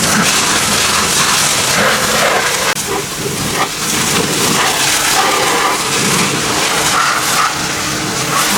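Loud, steady hissing noise with a brief dip about three seconds in.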